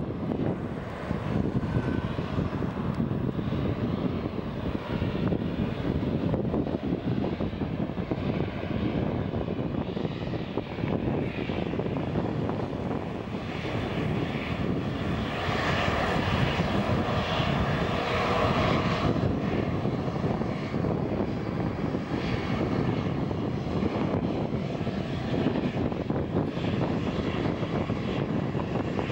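Embraer E195's two GE CF34-10E turbofan engines running at taxi power: a steady jet rumble with a whine that grows stronger about halfway through, then eases.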